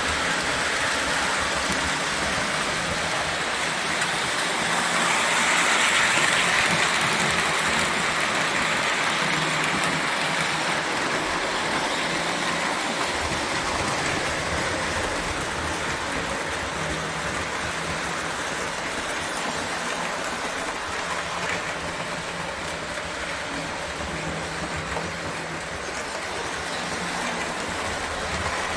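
O gauge toy electric train running on the track: a steady motor whir and wheel rumble that grows louder about six seconds in, then eases off.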